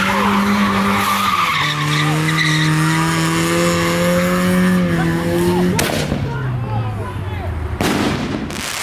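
Front-wheel-drive car swinging donuts on trays fitted to its rear tyres: the engine is held at high revs and the tyres squeal. About six seconds in there is a sharp bang and the revs fall away, and firework bursts crackle near the end.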